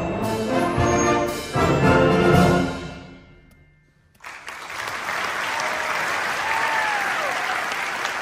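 High school symphonic wind band plays its closing chords, a loud final chord cut off about two and a half seconds in and ringing away in the hall. After a second of quiet, the audience applauds.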